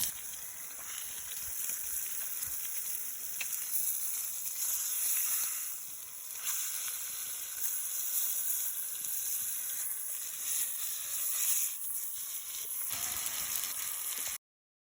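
Bone-in chicken breast sizzling, skin side down, in a buttered pan over a campfire: a steady frying hiss. The sound cuts off abruptly near the end.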